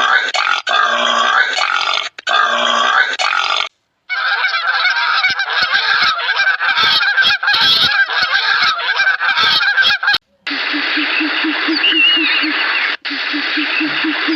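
A series of animal calls edited together, with abrupt cuts between clips: repeated calls about every half second, then a dense stretch of many overlapping calls, then a fast pulsing sound of about five beats a second with two short high chirps.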